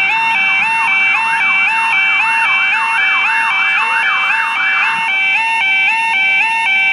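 Level crossing audible warning alarm sounding: a loud two-tone alternating electronic tone that repeats steadily. For about four seconds a second, sweeping warble rises over and over, about twice a second, then stops.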